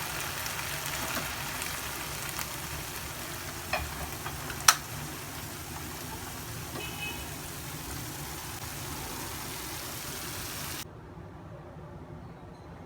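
Food sizzling in hot oil in a pan, with two sharp clinks of a cooking utensil about a second apart, around four and five seconds in. The sizzling stops abruptly near the end, leaving a low hum.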